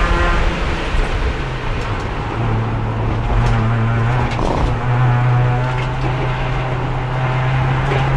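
Race car engine heard from inside the car, running steadily under load in 4th gear, with no gear changes because the transmission's other gears have failed. Its note wavers briefly about four and a half seconds in, then holds steady.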